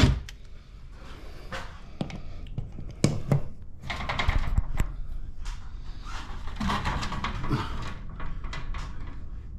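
A cordless drill cuts off right at the start, followed by scattered clicks, knocks and rustling handling noise.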